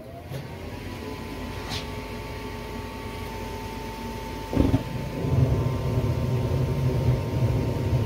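Older furnace starting up on a call for heat. A motor spins up to a steady whine, then about four and a half seconds in there is a thump, followed by a louder low rumble as the burner fires.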